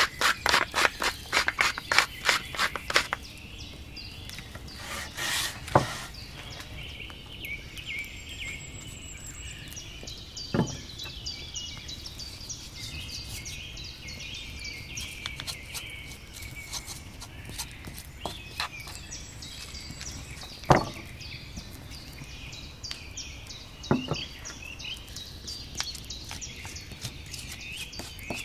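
Springtime birdsong outdoors: several small birds chirping and singing steadily. A fast run of sharp repeated strokes fills the first three seconds, and a few single sharp knocks come at intervals, loudest about twenty seconds in.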